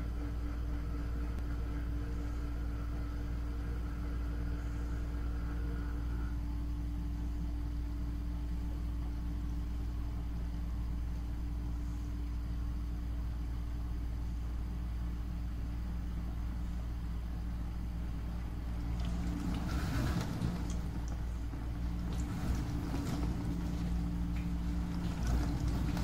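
Dishwasher running with a steady motor hum; about 19 seconds in, the spray arms start throwing water against the door, adding irregular splashing and spattering over the hum.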